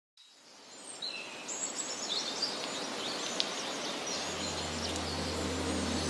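Forest ambience fading in: a steady rushing background with birds chirping and twittering. A low steady hum comes in about four seconds in.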